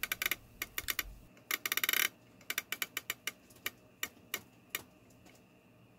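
Singer buttonholer attachment's adjusting knob being turned by hand, its gear mechanism driving the cloth clamp with a run of irregular sharp clicks. There is a quick flurry of clicks about a second and a half in, then sparser clicks that thin out near the end.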